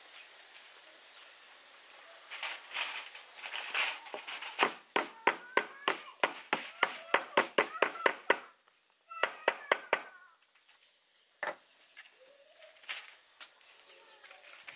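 A kitchen knife chopping lemongrass stalks on a wooden cutting board: a quick, steady run of sharp chops, about four a second. After a short pause comes a second brief run, then a single chop.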